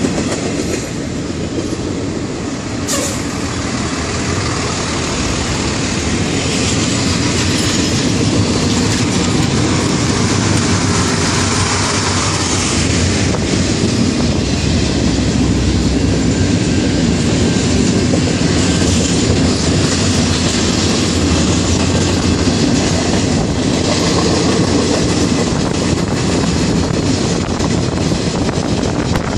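Double-stack container train rolling along at speed, a steady rumble and clatter of its well cars' wheels on the rails, heard from a car driving alongside. There is one sharp click about three seconds in.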